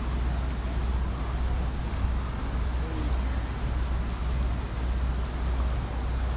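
Steady rushing of water pouring through a dam spillway: a constant low rumble with an even hiss over it.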